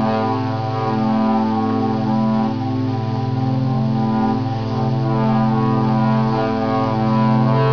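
Music of long, sustained notes with a steady low tone underneath, the held pitches shifting slowly.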